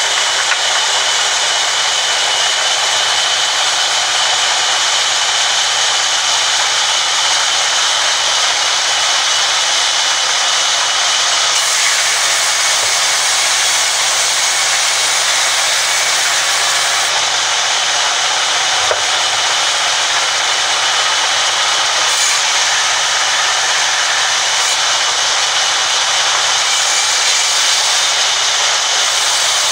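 Sawmill band saw running steadily and ripping long wooden planks: a loud, continuous noisy whine with a steady high tone.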